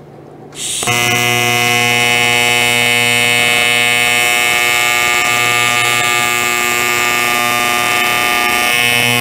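TIG welding arc laying a bead on a corner joint of a metal frame: a steady electric buzz that starts less than a second in as the arc strikes and then holds level.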